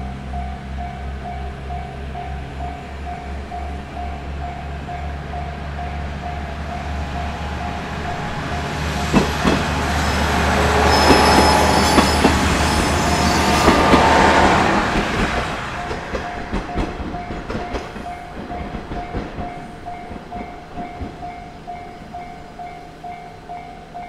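Japanese level-crossing warning bell ringing steadily at about one and a half strikes a second while a train passes over the crossing. The train's noise builds from about eight seconds in and is loudest for a few seconds, with wheels clacking over rail joints. It then fades, leaving scattered wheel clicks under the bell.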